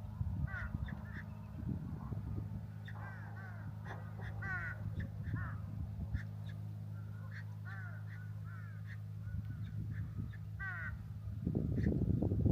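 Crows cawing repeatedly, many short calls from several birds overlapping, over a steady low hum. A louder low rumble comes in near the end.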